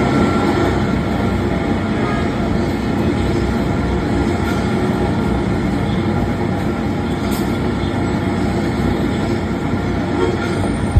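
Train running, a steady rumble and rattle.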